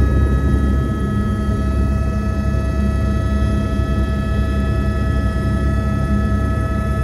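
Helicopter turbine engine and rotor running steadily at flight power, heard from on board: a constant high whine over a heavy low rumble.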